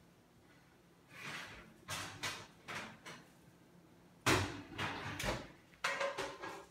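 Cats scuffling and chasing: a run of short rustling scrapes and bumps, with a sharp knock about four seconds in.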